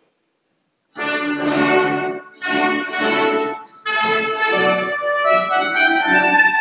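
Baroque orchestra playing live: after about a second of silence, two held chords with short breaks, then continuous music with a bright high line coming in near the end.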